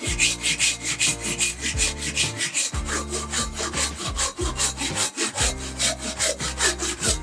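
Hand saw cutting across a split wood blank in quick, even back-and-forth strokes, about four to five a second, the teeth rasping through the grain.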